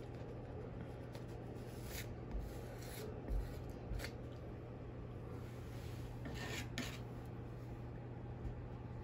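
Metal palette knife scraping and dragging acrylic paint across a stretched canvas: a few short scrapes about two, three and four seconds in, and a longer one a little after six seconds in, over a steady low hum.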